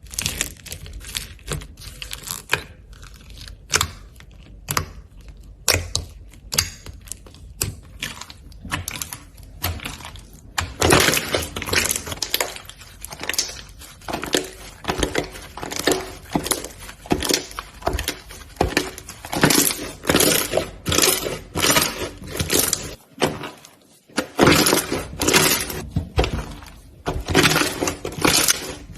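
Slime being squeezed and pressed by hand, giving repeated crackling, crunching pops about once or twice a second. They grow louder and denser about a third of the way in, with a short break about three-quarters through.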